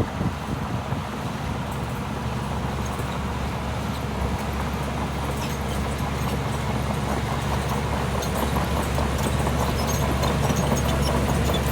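Heavy diesel engine of earthmoving machinery running steadily, with light irregular metallic clicking and clanking over it, getting slightly louder.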